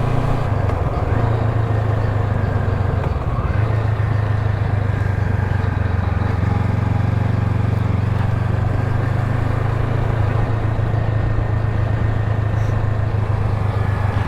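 Motorcycle engine running steadily while riding, with small shifts in engine speed in the first few seconds, over a steady rush of wind and road noise.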